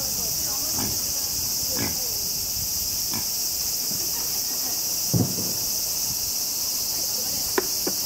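Steady high chorus of insects with a few short pig grunts in the first three seconds and a louder, low pig grunt about five seconds in. Two sharp clicks near the end.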